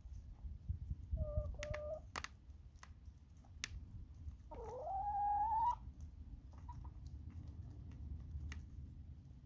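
Hens pecking at food on a plastic plate, with scattered sharp taps. One short level call comes about a second in, and a longer call rising in pitch comes around the middle; the rising call is the loudest sound.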